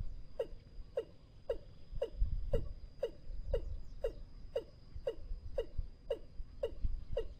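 Watercock calling: a steady series of short, deep notes, each sliding down in pitch, about two a second.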